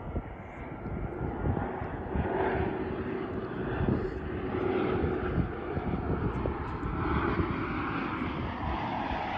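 Jet airliner engines running as a plane passes. It is an even rushing noise that slowly grows brighter, with a faint steady tone underneath for a few seconds.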